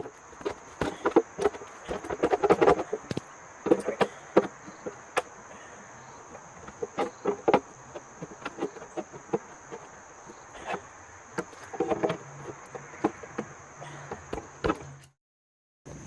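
Irregular sharp clicks and crunching knocks from a discarded Volvo 240 steel fuel tank being cut open by hand. A steady high chirring of insects runs under them. The sound cuts off abruptly near the end.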